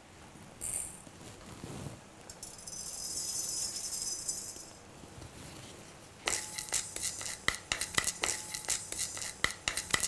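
Fenugreek seeds rattling and a wooden spatula scraping in a hot, heavy metal kadai as the seeds are dry-roasted: a dense run of quick clicks starting about six seconds in. Before it, a faint high hiss for a couple of seconds.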